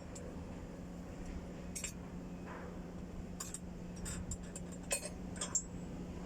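Irregular light metallic clinks and clicks of hand tools on metal parts, over a steady low hum.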